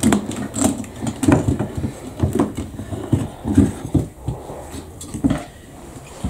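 Irregular hollow knocks and clatter of a motorcycle's plastic fuel tank being handled, as hands work a fitting at its opening, about a dozen knocks at uneven spacing.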